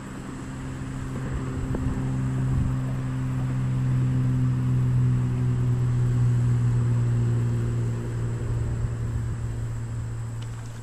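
Small electric trolling motor running with a steady hum as it pushes the canoe along. The hum grows louder over the first few seconds and eases off near the end.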